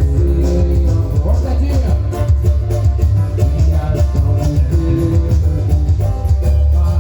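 Upbeat Brazilian samba-style music with heavy bass, percussion and guitar, with some singing.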